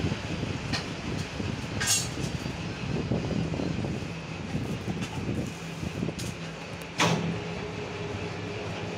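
Wet dhoop cutting machine running with a steady mechanical hum, broken by a few sharp clicks, the loudest about seven seconds in.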